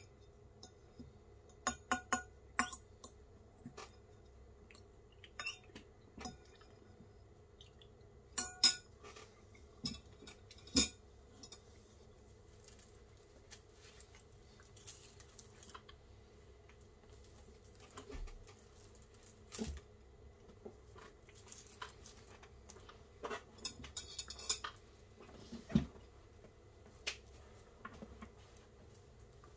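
A metal fork clinking and scraping against a ceramic bowl, with a few sharp clinks that ring briefly. In the second half, steel chain links from handcuffs and a waist chain jingle and rattle in softer clusters.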